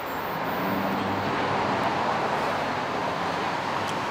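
Steady rush of street traffic, swelling over the first second or so as a vehicle goes by.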